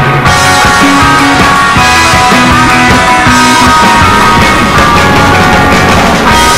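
Loud rock music with changing notes throughout.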